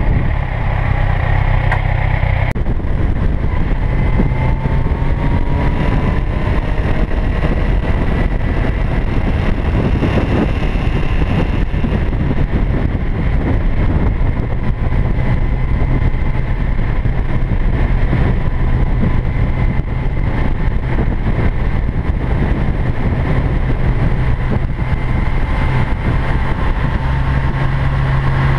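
Motorcycle engine running steadily at road speed, heard from the bike itself, under heavy wind rumble on the microphone. The sound shifts abruptly about two and a half seconds in.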